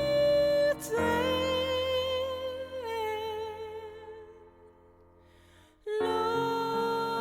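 Recorded gospel music: a long held sung note with vibrato drops in pitch and fades away, then after a short pause piano chords begin about six seconds in.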